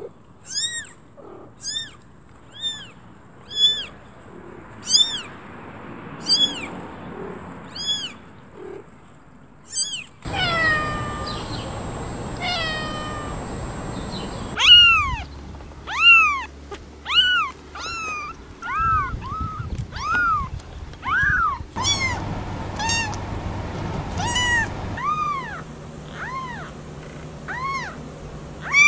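Kittens and cats meowing. A run of short, thin, high-pitched kitten mews comes about once a second. After about ten seconds comes a string of lower, louder, arching meows, with the background changing abruptly several times.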